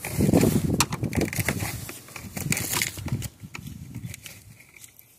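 Gloved hands forcing a wire under the rubber seal and plastic trim at the base of a Jeep's windshield: rubbing and crackling handling noise with a few sharp plastic clicks. It dies away over the last two seconds.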